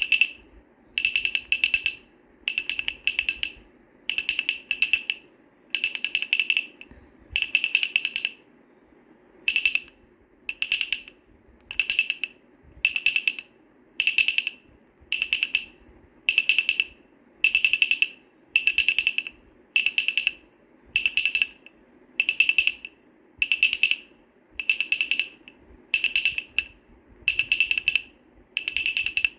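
Wooden baby rattle shaken in short bursts, about one a second. Each burst is a quick clatter of small knocks with a bright ringing note.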